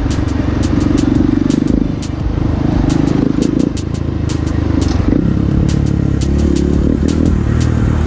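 Motorcycle engine running at low speed, its note shifting a couple of times as the throttle changes. Many sharp clicks sound over it.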